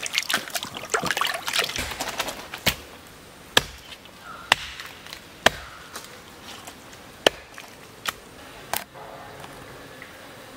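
Water splashing in a tub for the first couple of seconds. Then a knife chops duck meat on a wooden block: about seven single sharp chops, roughly a second apart.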